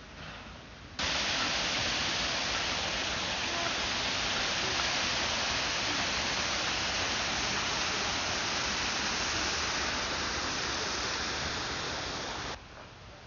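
Steady rush of running water from the canal, starting abruptly about a second in and cutting off suddenly near the end.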